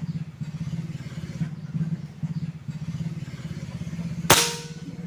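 A single sharp air-rifle shot about four seconds in, with a brief ringing tail, over a small engine running steadily nearby.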